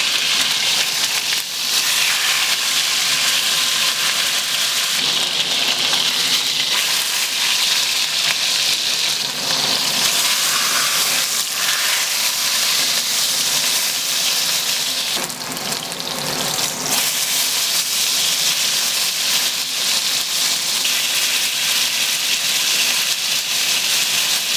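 Venison roast searing in a shallow layer of hot olive oil in a ceramic-coated cast iron Dutch oven: a steady, loud sizzle as the outside browns into a crust.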